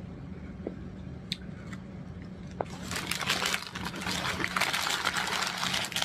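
Quiet chewing of a sub sandwich, then, from about three seconds in, a paper sandwich wrapper crinkling and rustling loudly as a second sub is unwrapped.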